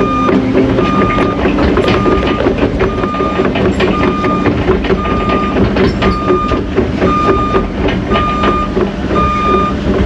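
Cat 307.5 mini excavator's travel alarm beeping evenly, a little more than once a second, while the machine tracks, over its diesel engine running and a steady clatter of clicks.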